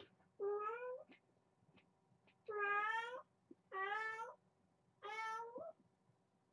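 A kitten meowing four times, each meow rising in pitch, the second one the longest and loudest.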